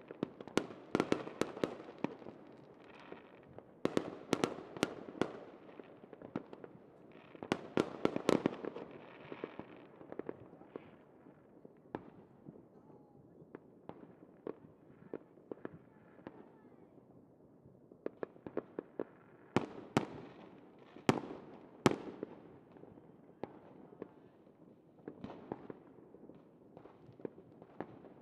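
Crackling fireworks: rapid, irregular sharp pops and crackles. The densest, loudest clusters come about 1, 4, 8 and 20–22 seconds in, with sparser crackling between.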